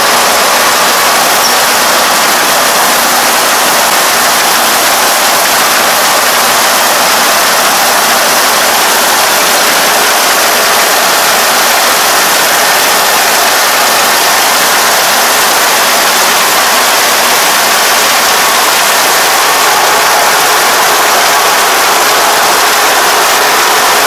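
Crawler rice combine harvester running steadily at working speed while cutting and threshing rice, a loud, even, hissing mechanical noise with no change in pitch.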